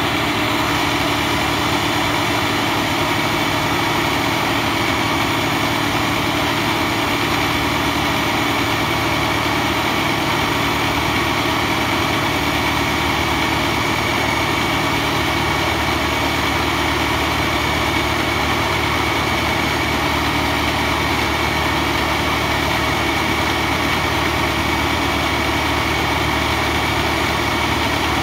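Stand-mounted diamond core drill boring into a concrete slab, its electric motor running steadily with an even, unchanging whine over a low hum.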